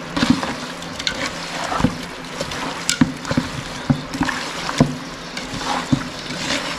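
A hand squishing and mixing marinated chicken pieces in a large aluminium pot: irregular wet squelches with short knocks, a few a second, as the hand and meat hit the pot.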